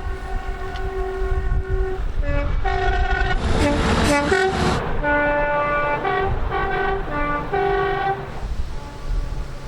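Two-tone train horn sounding a string of blasts, switching between a high and a low note, over the low rumble of a running train. A loud rushing noise breaks in about four seconds in, and the horn stops a little before the end.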